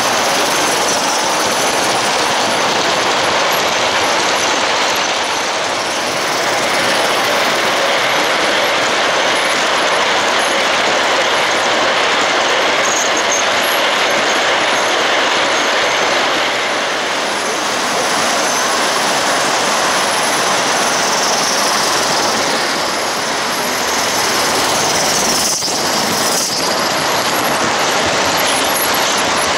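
Large-scale (G gauge) live-steam model trains running on metal track: a steady rolling clatter of wheels on rail, heard close up, with the locomotives' steam.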